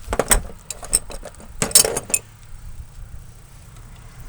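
Metal parts and tools clinking and knocking: a few clinks at the start and a busier cluster about two seconds in.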